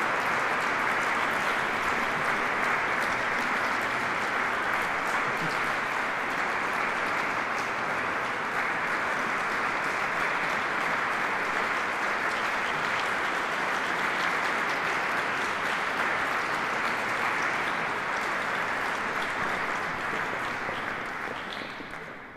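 Concert audience applauding steadily, the clapping fading out near the end.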